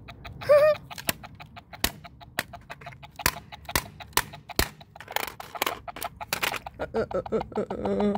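Toy Batman walkie-talkie's speaker glitching: rapid, irregular crackling clicks, with a short warbling electronic squawk about half a second in and distorted, wobbling squawks near the end.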